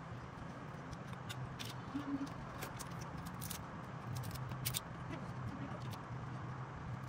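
Cooked crab shells cracked and snapped apart by hand: irregular sharp clicks and crackles, a handful over a few seconds, over a steady low hum.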